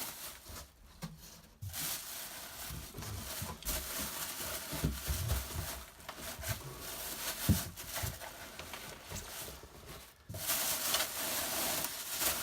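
Polystyrene packing and a cardboard box being handled and pulled about: irregular rubbing and rustling with a few dull thumps, the loudest about seven and a half seconds in.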